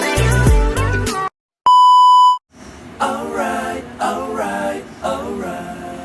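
Pop music with a heavy bass beat cuts off about a second in, followed by a single steady beep lasting under a second. Then a voice starts singing unaccompanied.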